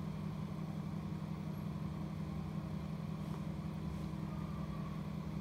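Small axial cooling fan running with a steady, even hum, switched on through the programmable timer.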